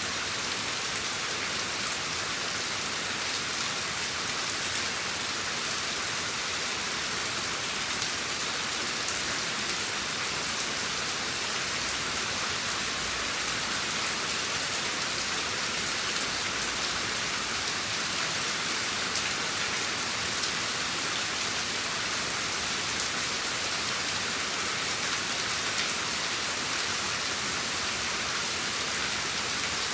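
Steady rain falling, an even hiss of many drops with no break and no thunder.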